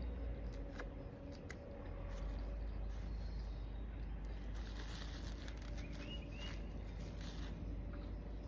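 Quiet outdoor ambience with a steady low hum, a few faint bird chirps about six seconds in, and scattered light clicks and rustles.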